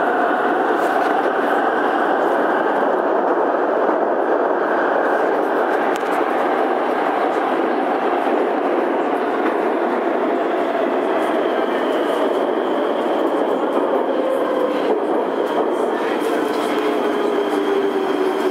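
Prague metro M1 train running on the line: a steady rolling rumble with a motor whine whose pitch falls slowly and then more steeply near the end as the train slows.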